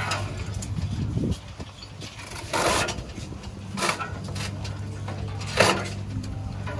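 A stainless-steel lever-press coconut opener at work: a green coconut is knocked into the cutter's holder with a couple of short scraping clunks, then the lever drives the blade into the coconut with a sharp crunch near the end. A low steady hum cuts out just over a second in.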